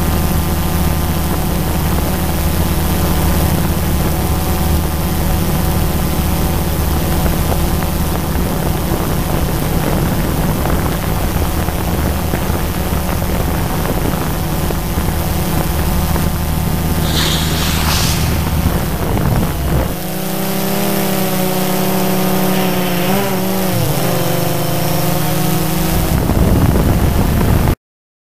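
Drone's electric motors and propellers humming steadily, picked up by its own onboard camera. About twenty seconds in, the pitch of the hum shifts and wavers as the motor speeds change, and the sound cuts off suddenly near the end.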